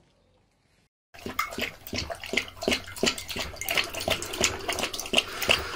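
A dog lapping liquid from a mug: a quick, irregular run of wet laps, starting about a second in after a moment of near silence.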